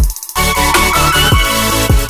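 Electronic background music with a steady beat and deep bass hits that slide down in pitch; the bass cuts out briefly just after the start.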